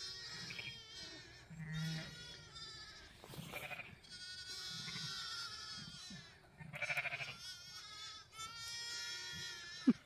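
Zwartbles sheep and lambs bleating again and again: long, high, wavering calls with a few short low ones between them. These are ewes and lambs calling to find each other after a lamb was left behind.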